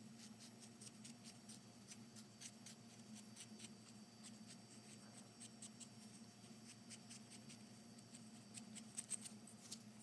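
Carving knife paring thin shavings off a basswood bird carving: faint, irregular little scraping ticks, with a few louder cuts near the end.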